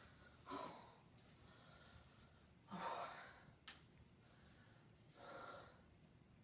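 A woman catching her breath after exertion: three faint, heavy exhalations a couple of seconds apart, the middle one loudest, with a single sharp click between the second and third.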